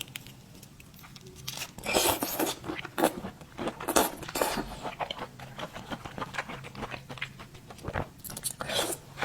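Close-up eating sounds: a run of crunches, tearing and chewing, with louder crunches about two, three and four seconds in and again near the end.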